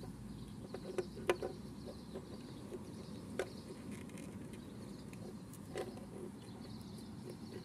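Small plastic clicks and taps, a few scattered over several seconds, as a mini ball-jointed doll is handled and fitted onto a toy plastic tricycle on a wooden table, over a low steady background noise.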